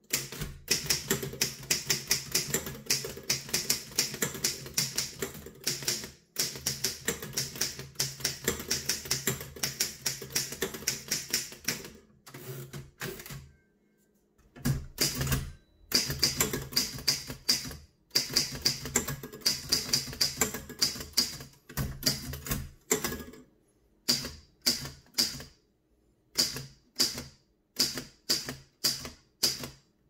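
1936 Underwood No. 6 manual office typewriter being typed on: quick runs of keystrokes, each typebar clacking against the platen. There is a short pause about halfway, and near the end the keystrokes come slower, one at a time.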